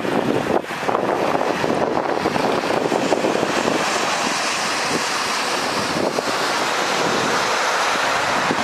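Steady rush of heavy rain, with wind buffeting the microphone.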